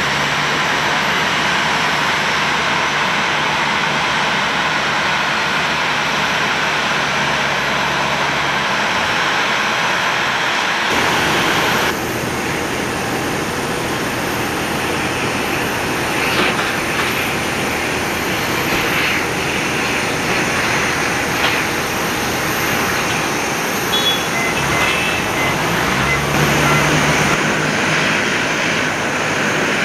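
Jet airliner engines running at idle as a Boeing 737-800 taxis. About eleven seconds in, the sound cuts to a Dash 8-200 twin turboprop taxiing after landing, with a steady hiss and a low propeller tone that rises near the end.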